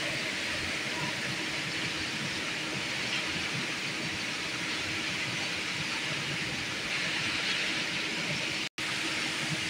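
Steady hiss with a faint low hum, cutting out for an instant near the end.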